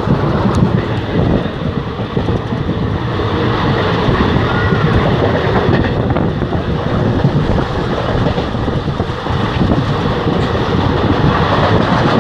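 Moving passenger train running steadily: wheels rumbling and rattling on the track, heard from inside a sleeper coach at an open window.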